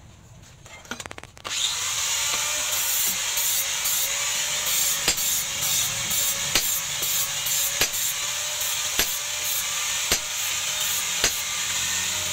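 Sharp metal strikes about once every second or so, a hammer driving a hot-cut chisel into a red-hot steel knife blank. A steady loud whirring noise starts suddenly about a second and a half in and runs under the strikes.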